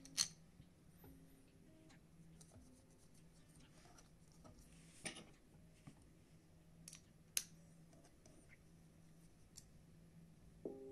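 Sparse sharp clicks and light knocks of small metal bolts, a hex key and 3D-printed plastic parts being handled and fitted, over a quiet room with a faint steady hum; the loudest click comes just after the start. Background music comes in right at the end.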